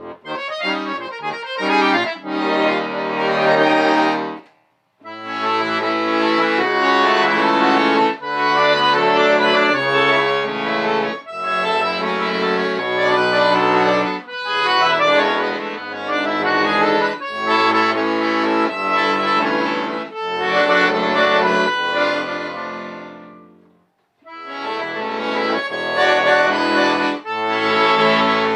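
Solo accordion playing: sustained chords under a melody line. The music breaks off briefly twice, once about four and a half seconds in and once a few seconds before the end.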